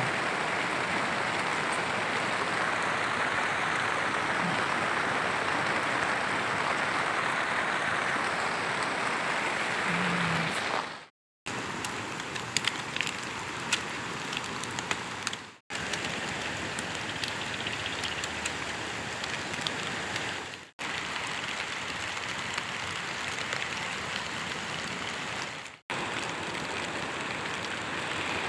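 Steady rain falling on a tent, with individual drops ticking now and then. The sound breaks off briefly four times, at cuts between clips.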